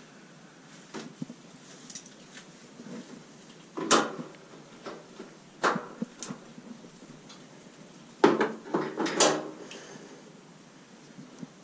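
Hard objects being handled: scattered knocks and clatters, one of the loudest about four seconds in and a quick cluster a little past eight seconds.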